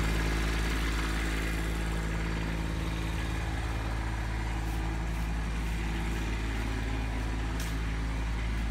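Compact tractor engine running steadily at a constant pitch while it pushes a shed along on rollers, with a few faint clicks about the middle and near the end.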